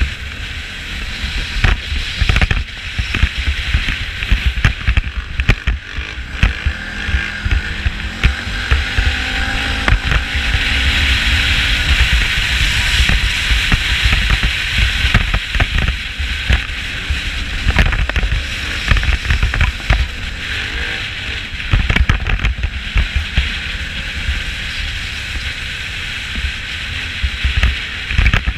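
Loose snap-in GoPro mount rattling and knocking without pause on a moving ATV, over the low rumble of the ATV's engine and a steady rush of wind and tyres on gravel.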